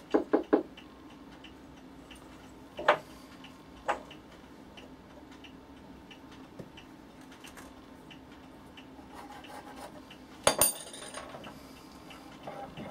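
Sharp clicks and knocks of hand tools and wood handled at a bench vise: three quick clicks at the start, single knocks about three and four seconds in, and a louder metallic clank with a brief ring near the end.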